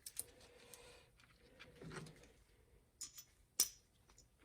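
Faint, scattered clicks and light taps of small metal carburetor parts being handled during reassembly, the sharpest about three and a half seconds in.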